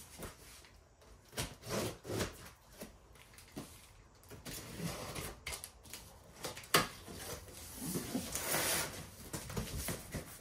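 A TOUGHBUILT utility knife slicing through packing tape on a cardboard box, with short scratchy rasps and clicks. Near the end the cardboard flaps scrape as they are pulled open.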